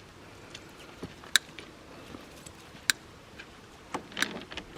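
Sharp clacks of stones knocking against each other as rocks are packed: single clacks about a second and a half apart, then a short run of several near the end.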